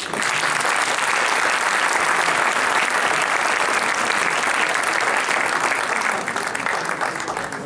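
Audience applauding, starting all at once and fading away near the end.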